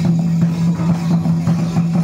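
Santali madal hand drums beating a quick, even rhythm for a Karam dance, over a steady low hum.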